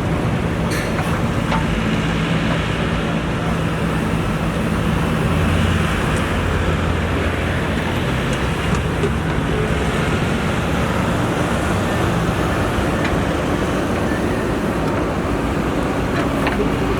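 Diesel engine of a JCB 3DX backhoe loader running steadily while the machine works, its low engine note shifting a little partway through as the load changes.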